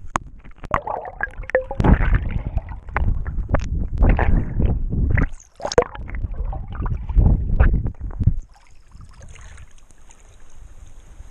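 Sea water splashing and sloshing over an action camera as it bobs in and out of the surface, with irregular knocks and gurgles. The splashing stops about eight seconds in, leaving a quiet steady hiss.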